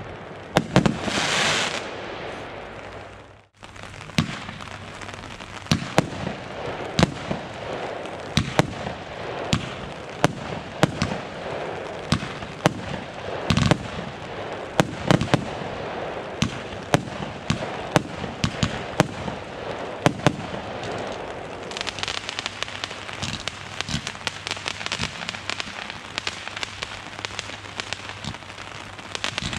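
Consumer fireworks battery firing: a string of sharp bangs, roughly one or two a second, after a brief gap about three and a half seconds in, with dense crackling filling in over the last third.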